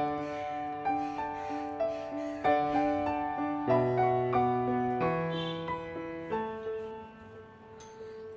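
Background music: a gentle melody of piano-like keyboard notes.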